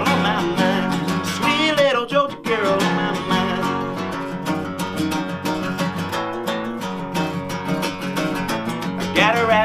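Acoustic guitar strummed steadily, with a man singing over it in short phrases, about a second in and again near the end.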